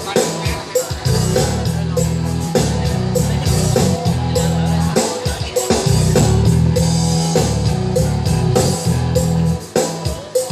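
Loud music with guitar, bass and a steady drum beat.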